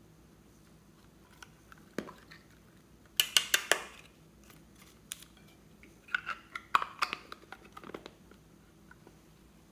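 Hard plastic unicorn-shaped clay container handled and pried open, its two halves clicking and crackling. There is a sharp click about two seconds in, then quick clusters of plastic clicks around three to four seconds in and again around six to eight seconds in.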